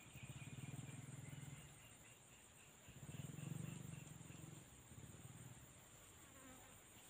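A fly buzzing close by in swells, first near the start and louder about three seconds in, over a steady high-pitched drone of insects.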